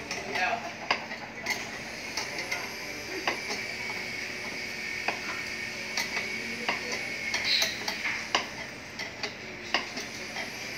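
Wrench turning the centre screw of a three-jaw bearing puller: irregular metallic clicks and scraping as the worn bearing is drawn off the alternator shaft.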